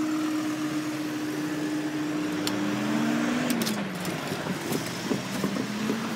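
Level crossing barriers rising with a steady mechanical hum that stops about three and a half seconds in, as the booms reach the top. Queued cars then pull away and drive over the crossing, their engines rising and falling in pitch.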